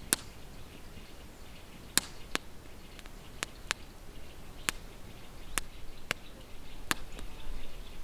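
Campfire crackling: about ten sharp pops from the burning wood at irregular intervals, a few a second at most.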